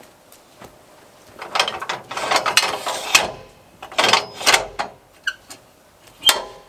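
Metal sawmill gear being worked by hand, rattling and ratcheting in several short bursts, then one sharp clank near the end, as a small cypress log is set on the mill.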